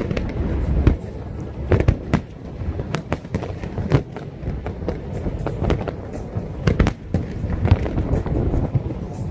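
Fireworks display: sharp bangs at an irregular pace, several a second, over a continuous low rumble of bursts.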